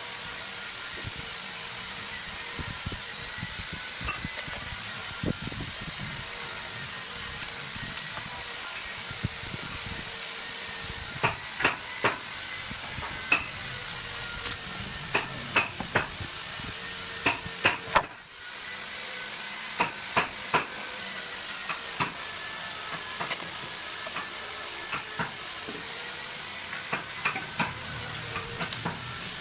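Sharp wooden knocks and taps in short clusters, typical of hammering or tapping while assembling a drawer, over a steady workshop hiss and hum.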